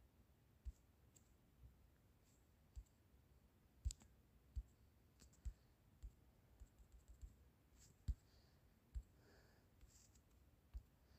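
Near silence broken by about a dozen faint, irregular taps and clicks from fingertips tapping the phone's touchscreen.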